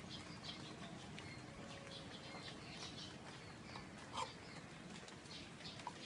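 Faint outdoor ambience with many short, high chirps scattered throughout, and one light clink of a metal spoon against a steel pot a little past four seconds in.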